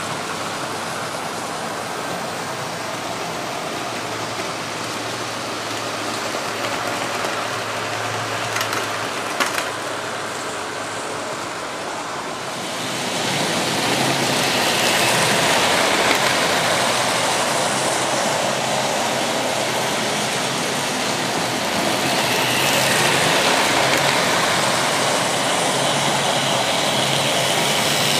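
OO-gauge model trains running on a double-track layout: a steady whir and rumble of small electric motors and wheels on the rails. It gets louder about 13 seconds in, as a train passes close by.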